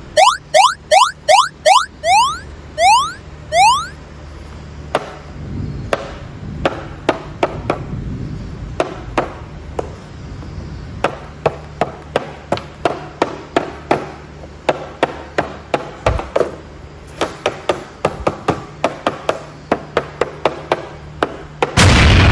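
Quick rising whistle-like sound-effect chirps, about nine in the first four seconds. Then a long run of sharp clicks and taps of hard plastic being handled, some in quick clusters.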